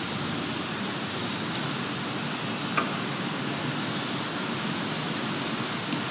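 Steady background hiss with one short click about three seconds in.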